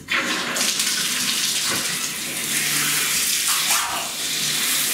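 Water turned on at a bathtub's shower valve, coming on suddenly and running steadily into the tub, a little fuller about half a second in.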